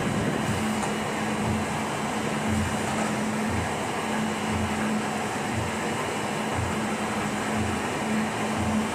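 Veneer peeling line machinery running: motors and conveyors giving a steady mechanical hum with a low, even beat about once a second.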